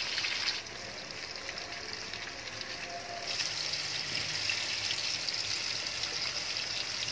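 King fish steaks coated in masala sizzling in shallow oil in a frying pan, frying slowly to a reddish colour. The sizzle eases off about half a second in and picks up again about three seconds in.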